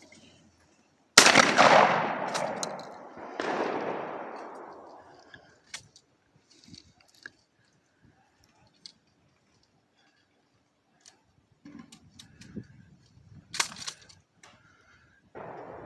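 A pump-action shotgun fires about a second in, the report dying away slowly over a few seconds, with a second, weaker boom about two seconds later. Scattered light clicks follow.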